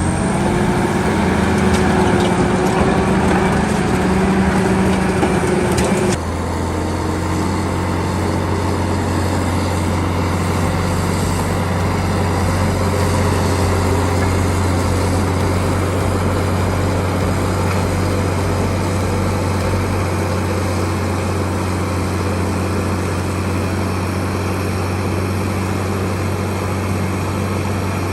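Caterpillar D8R bulldozer's diesel engine running under load, its pitch rising slightly over the first few seconds. About six seconds in, the sound changes abruptly to a steadier, deeper engine note that carries on.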